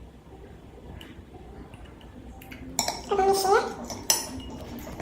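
A utensil clinking and scraping against a bowl as slime mixture is stirred, with a few sharp clinks in the second half. About three seconds in, there is a brief high whining call.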